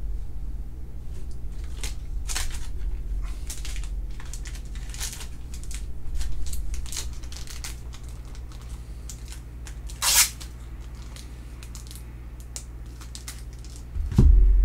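Crinkling and clicking of plastic card holders and sleeves being handled, with a sharper crackle about ten seconds in and a low thump against the table near the end.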